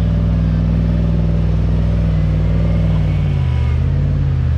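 Vehicle engine running steadily under load, pulling a stuck pickup through soft sand on a tow strap; the revs drop about three and a half seconds in.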